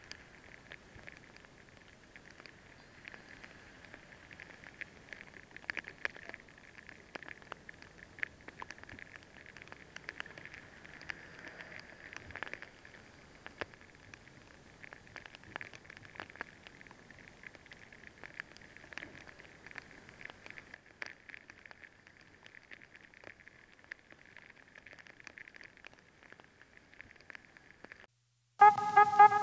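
Rain pattering on the camera: a faint, dense run of small taps over a steady hiss. Near the end the sound cuts off, and a loud, steady pitched tone starts abruptly.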